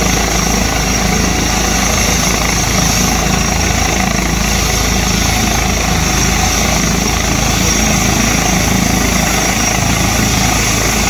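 Eurocopter EC135 air ambulance helicopter running steadily on the ground, its turbine whine and rotor noise holding at an even level.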